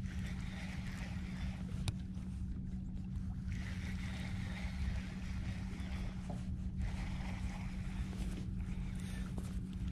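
Boat motor running with a steady low hum over a constant hiss, with a single sharp click about two seconds in.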